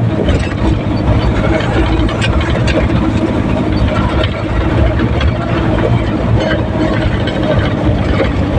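Isuzu 4HL1 four-cylinder diesel engine running steadily on a road test, its hard starting and low power repaired.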